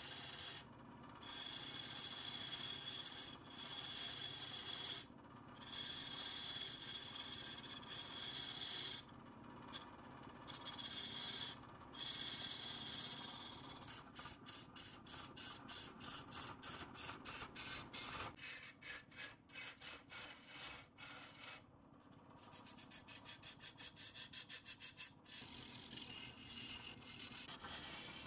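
Wood being worked on a spinning lathe: a steady scraping rub on a wooden vase with a faint high whine, breaking off briefly several times, then turning about halfway through into quick repeated rubbing strokes.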